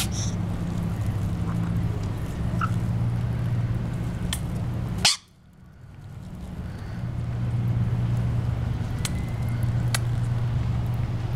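Steady low hum with a few sharp clicks of rainbow lorikeet beaks pecking at seed on a concrete sill. The tail of a lorikeet's display hiss sounds at the very start, and about five seconds in a sharp click is followed by a sudden drop in all sound that slowly comes back.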